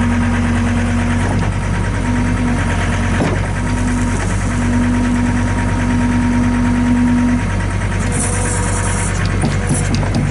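Diesel engine of a 2006 John Deere 325 skid steer running steadily, with a steady whining tone that cuts in and out several times, then stops a little over two-thirds of the way through. A short hiss follows near the end.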